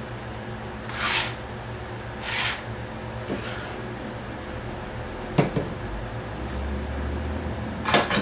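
Workbench handling sounds: two brief scraping swishes early on, then a few sharp clicks and light knocks, over a steady hum.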